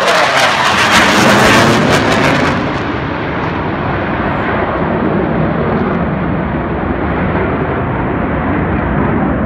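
EA-18G Growler's twin F414 turbofan engines in a loud jet pass low overhead, crackling and hissing. After about two and a half seconds the hiss drops away and it settles into a steady, duller rumble as the jet flies off.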